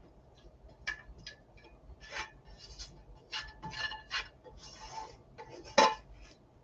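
A cooking utensil scraping and clinking against a stone-effect non-stick frying pan as sauced ravioli is scraped out into a metal baking dish. It comes as a string of short scrapes and clinks, with one louder knock near the end.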